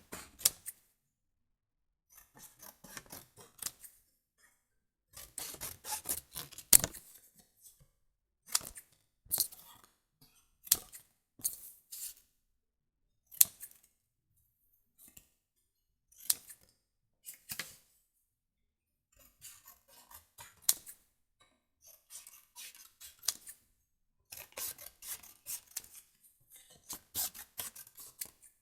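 Scissors cutting paper: runs of quick snips and the rustle of paper in short clusters, broken by brief pauses, with a few single sharp snips standing out.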